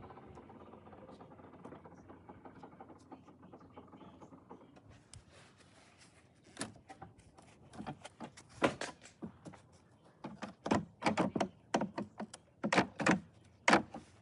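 Plastic trim on a 2014 Jeep Grand Cherokee's rear camera area being worked and pried loose by hand: a run of sharp plastic clicks and knocks starting about six seconds in, coming thicker and louder near the end.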